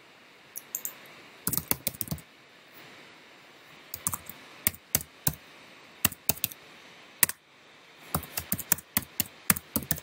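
Typing on a computer keyboard, entering a login password: a few scattered keystrokes at first, then a quicker, irregular run of keystrokes from about four seconds in.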